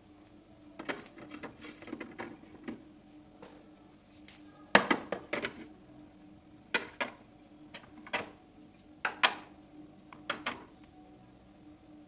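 Jars and bottles being set down on the plastic door shelves of a refrigerator: a run of sharp clicks and knocks, the loudest cluster about five seconds in, over a faint steady hum.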